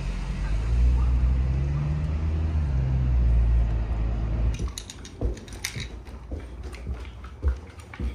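Small car's engine and low rumble as it pulls away, the engine note rising and then holding for about four seconds, followed by a run of sharp clicks and knocks.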